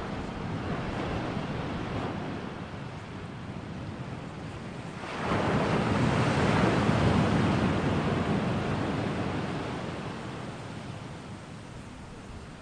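Ocean surf: a steady rush of water noise that swells into a big wave about five seconds in, then slowly ebbs away.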